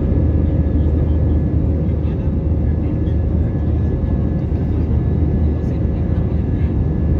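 Jet airliner cabin noise from a window seat beside the wing-mounted turbofan: a steady, loud rush of engine and airflow with a deep hum and a faint steady whine above it.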